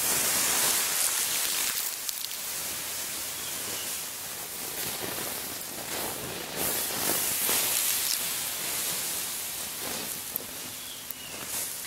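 Water poured onto the hot ashes and embers of a campfire, splashing and hissing as it turns to steam, putting the fire out. It is loudest at the start and swells again about six and a half seconds in, then dies down near the end.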